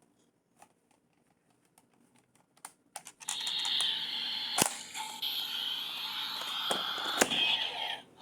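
Kamen Rider Build toy bottle handled with light plastic clicks, then about three seconds in its small speaker starts a loud, hissing electronic sound effect, broken by two sharp clicks, which cuts off just before the end.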